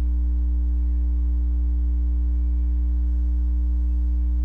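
Steady electrical mains hum on the recording: one loud, unchanging low tone with fainter higher overtones.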